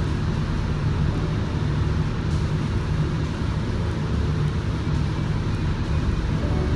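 Gravity-feed spray gun spraying base coat, its air hiss over a steady low rumble of the paint spray booth's air moving equipment.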